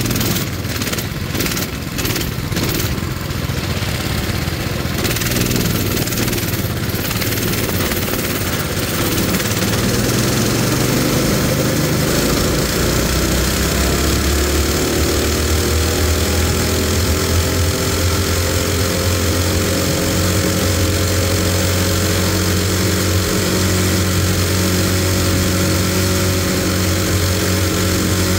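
Coleman mini bike's small single-cylinder engine picking up speed and then running steady at cruising speed, heard from on the bike with wind noise on the microphone. A rapid series of buffeting knocks sounds during the first few seconds.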